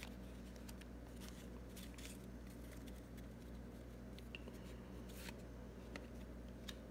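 Paper baseball cards being flipped through and slid against each other by hand, making faint scattered clicks and rustles over a steady low hum.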